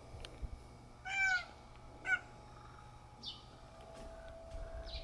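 Domestic cat meowing twice: a longer meow about a second in, then a short one about a second later.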